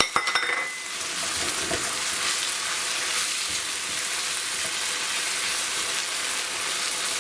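Rice, vegetables and yogurt sizzling in a pan while being stirred, with a few clinks of the spoon against the pan in the first second.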